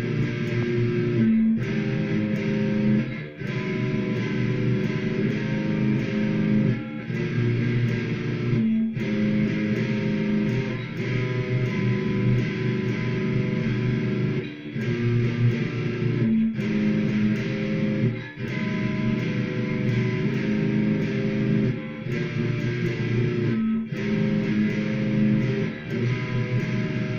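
Cort G100 electric guitar playing a slow chord-based instrumental, each chord held for a couple of seconds with a brief break at every change. The recording is thin, from a phone microphone.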